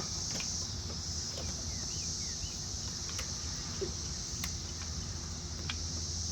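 Steady high-pitched chorus of insects such as crickets, with a few faint clicks and taps.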